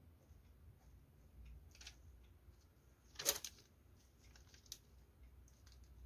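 Quiet handling of parcel packaging: scattered small clicks and rustles, with one louder short rustle about three seconds in.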